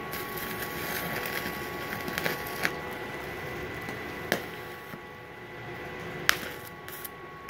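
Stick-welding arc from a Multipro MMA 200G KR inverter at 60 amps, welding cast iron with a special cast-iron electrode: a steady, smooth crackle with a few sharp pops. A smooth arc sound is typical of the cast-iron electrode, unlike the louder sputter of an ordinary steel rod.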